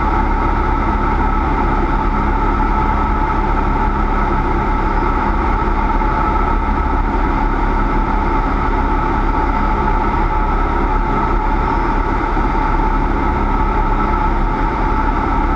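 Cessna 172's piston engine and propeller running loudly at a steady, unchanging pitch.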